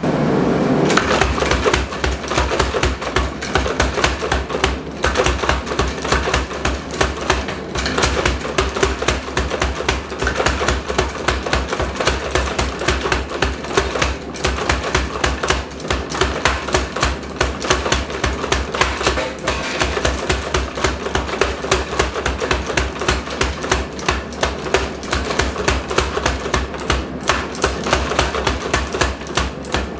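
Power hammer pounding red-hot rebar in a fast, steady run of blows, drawing the end out into a taper, with a steady low hum from the hammer running under the strikes. Background music plays over it.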